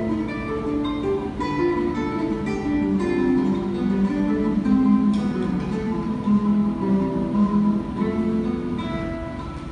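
Solo classical guitar playing a mazurka: a continuous run of plucked melody notes over bass notes, with a few strummed chords, the playing growing a little softer near the end.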